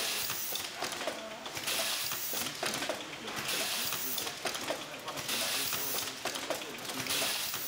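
Mectec T50 inline tamp-and-blow label printer cycling: a hiss with mechanical clicks and clatter that swells and fades about every two seconds as the applicator works.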